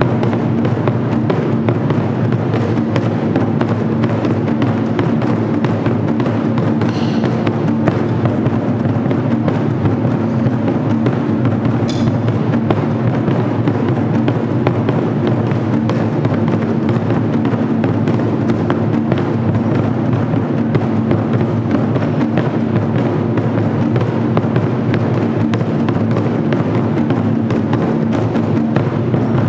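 Japanese taiko drums played by an ensemble: a large barrel-shaped taiko struck with wooden bachi sticks in a steady, dense stream of strokes that does not let up.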